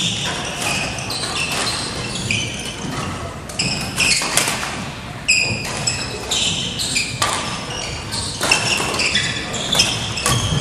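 Badminton play on a wooden gym floor: athletic shoes squeaking in short, high chirps as players move, and sharp racket strikes on the shuttlecock, many times over.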